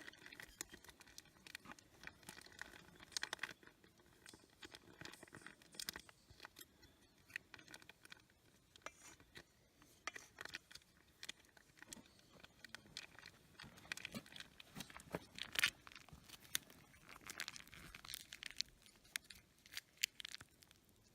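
Faint scattered rustling, crinkling and light clicks of hands handling packaging and camp cookware, with one sharper click about fifteen seconds in.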